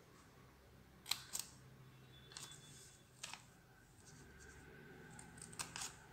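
Small pair of scissors snipping into folded paper: a handful of short, crisp snips, two close together about a second in, two single ones after that, and another pair near the end.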